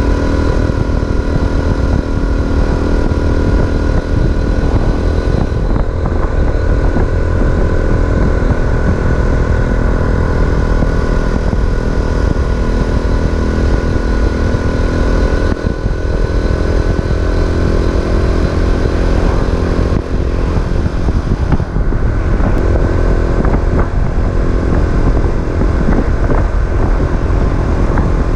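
Racer Alpha RC50 moped's small single-cylinder engine running under way while riding, with heavy wind buffeting on the microphone. The engine note shifts a few times as the throttle or gear changes. The engine is still being run in.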